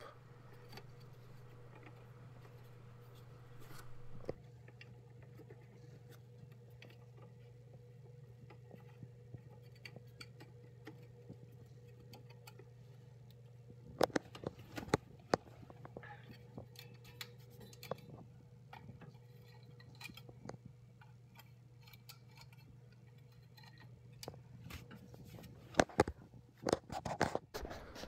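A steady low electrical hum from the running heating equipment at the newly fitted two-port valve. A few sharp clicks and knocks of handling come about halfway through and again near the end.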